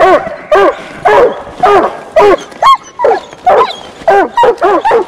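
Coonhound barking treed at the base of a tree: a steady run of loud barks, about two to three a second, with one higher-pitched bark about halfway through.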